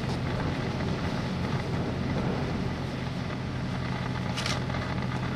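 A vehicle engine idling steadily, a low hum under a wash of wind noise, with a brief hiss near the end.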